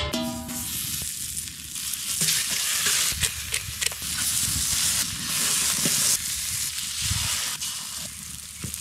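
Food frying in a pan: a steady sizzle with scattered small clicks.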